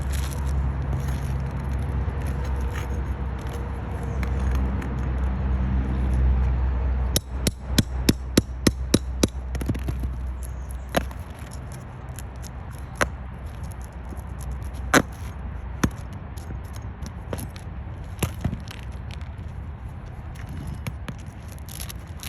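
A steady low rumble, then a quick run of about a dozen sharp knocks about seven seconds in, followed by single knocks every couple of seconds.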